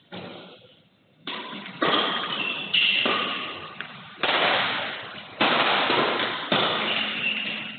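Badminton rackets striking a shuttlecock during a rally: about seven sharp hits, each trailing off in a long echo from the large hall.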